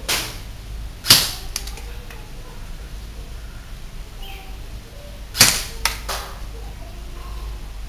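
Electric airsoft rifle (E&C 604 JR Custom, battery-powered gearbox) firing single shots, each a short sharp crack: one about a second in, another about five and a half seconds in, followed closely by two fainter cracks.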